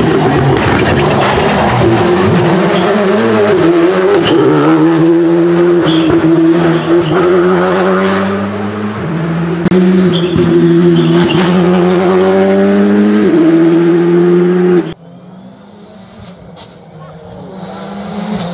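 Rally car engine at full throttle, its pitch climbing and then stepping down at each upshift as it passes. About 15 seconds in the sound cuts off abruptly to a quieter engine that grows louder toward the end as another car approaches.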